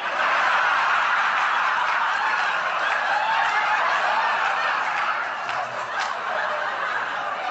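A large audience laughing loudly and without a break, with one sharp knock about six seconds in.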